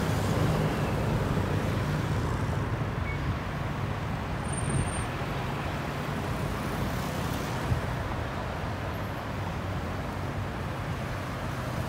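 Road traffic: cars and motorcycles driving past on a multi-lane road, a steady traffic noise with low engine hum that is a little louder in the first few seconds.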